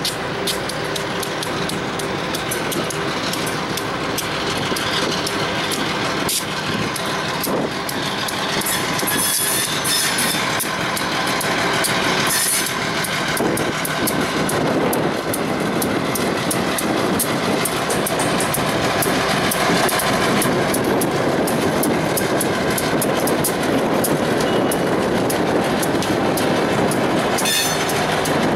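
Freight train rolling past, its wheels clicking steadily over the rail joints. Brief high squeals from the wheels come about three times.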